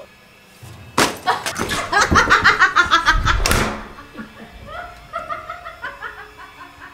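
A sharp knock about a second in, then a person laughing loudly in quick pulses for about two and a half seconds, dying down to quieter sounds.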